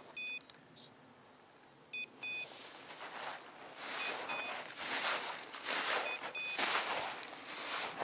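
A hunting dog's beeper collar giving a double beep about every two seconds, the point-mode signal that the Brittany is standing on point. From about halfway in, footsteps crunch through snow, and these are the loudest sound.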